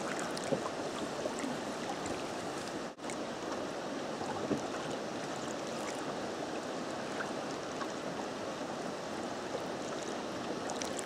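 River water flowing: a steady rush of moving current with small splashes and ticks, briefly dropping out about three seconds in.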